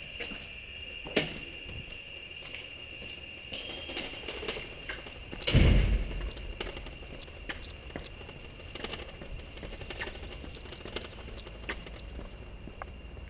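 Bicycle being wheeled and ridden over concrete: scattered clicks and rattles, with one heavy thump about five and a half seconds in.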